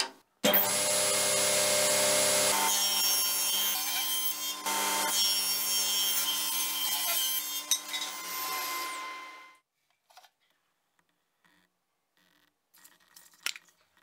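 Circular saw bench ripping larch stock lengthwise: the blade's steady high whine mixed with the noise of the cut. It starts abruptly about half a second in and dies away about nine and a half seconds in, leaving only a few faint clicks and knocks.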